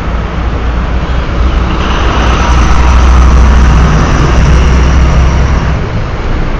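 A road vehicle passing close by, its low engine rumble and a faint high whine swelling about a second in and dying away near the end, over steady traffic noise.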